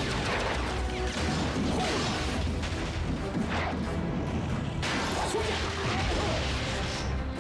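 Action-scene soundtrack: background music mixed with crashes, impacts and whooshes.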